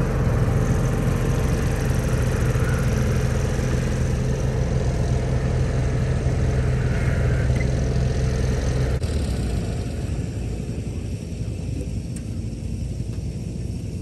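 An engine idling steadily, with a low, even hum, then shut off about nine seconds in.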